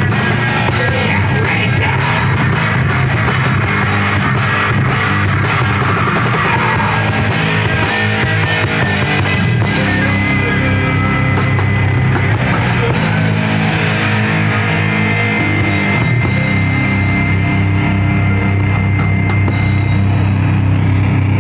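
Loud live heavy metal band playing, with distorted electric guitars, bass and drum kit. About ten seconds in, the drumming thins out and the guitars ring on in held chords with a high sustained tone.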